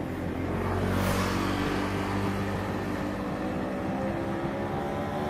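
KAI KT-1 Woongbi's PT6A turboprop engine and propeller running as the trainer taxis, a steady drone of several tones with a hiss above. It grows louder about a second in, then holds steady.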